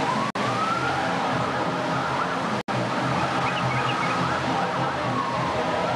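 Steady rush of water falling down a floodlit artificial tiered waterfall, with a siren wailing slowly up and down above it. The sound cuts out for an instant twice.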